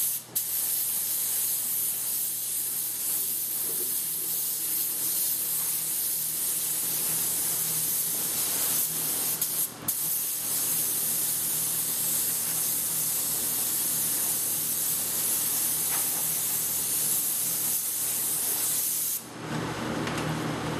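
Gravity-feed paint spray gun hissing as it sprays, cut off briefly twice, just after the start and about ten seconds in. The hiss stops near the end, leaving a lower steady hum.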